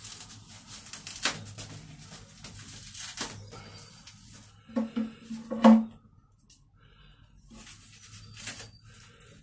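Cardboard and packing tape being picked at and torn by hand, crackling, with several sharp knocks, the loudest a little over halfway. Near the end, scissors cut into the wrapping in short rasps.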